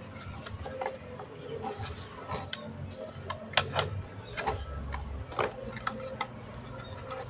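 Irregular clicks and light knocks from parts and tools being handled while a spring is fitted in a washing machine, with several in quick succession near the middle.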